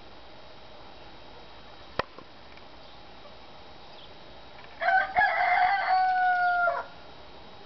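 A rooster crowing once: a single call of about two seconds starting around five seconds in, held on a steady pitch and dropping away at the end. A single sharp click comes about two seconds in.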